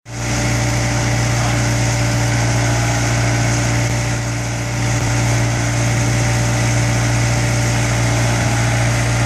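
Finn BB302 bark blower running steadily under load while blowing mulch through its hose, a constant engine-and-blower drone that dips slightly about four seconds in.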